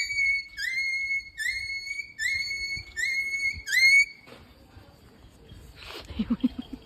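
Six high, whistle-like whines imitating a dog, each sliding up and then held about half a second, repeated about once a second before stopping after about four seconds.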